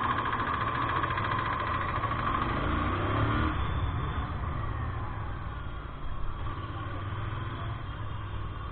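Royal Enfield Interceptor 650's parallel-twin engine running on the move, with a steady low drone and road noise that ease off a little in the second half.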